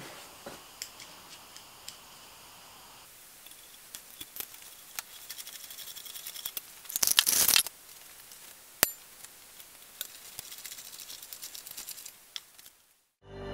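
Screws being driven through the steel frame's holes into a cherry-wood seat: clicks and metal-on-wood scraping, with one loud harsh rasping burst about seven seconds in and a sharp click shortly after.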